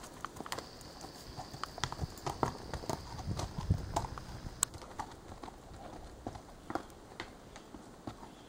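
Horses' hooves clopping unevenly at a walk on a rocky dirt trail, a few sharp knocks a second.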